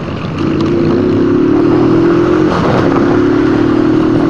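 Motorcycle engine under acceleration: a steady, strong engine note that comes in about half a second in, eases off briefly around two and a half seconds in, then pulls again.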